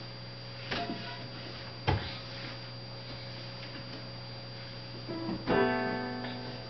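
A couple of soft knocks, then near the end a single ringing chord like a plucked or strummed string, which dies away over about a second.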